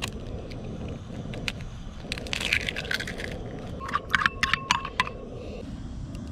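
An egg cracked open over a ceramic bowl, its shell crackling, then eggs beaten with a metal spoon, a quick run of clinks against the bowl about four seconds in.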